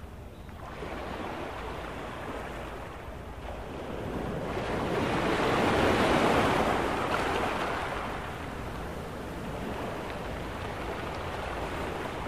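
A rushing noise with no voice or tune in it, swelling to its loudest about six seconds in and then easing off.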